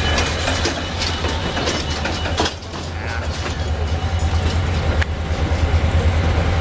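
Amtrak diesel switcher locomotive's engine running with a steady low hum as it pulls a passenger trainset through the station tracks, with sharp wheel clicks over the rail joints. The engine grows louder in the second half.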